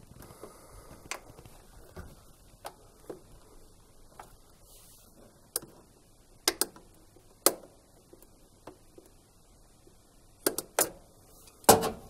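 Scattered light clicks and knocks as a washing machine's rubber sump hose and its metal hose clip are handled and pushed back onto the plastic pressure chamber.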